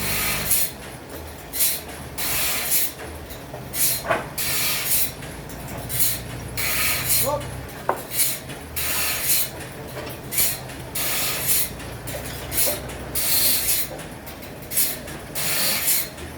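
A saw cutting wood at a sawmill: repeated short rasping strokes about once or twice a second, over a low machine hum.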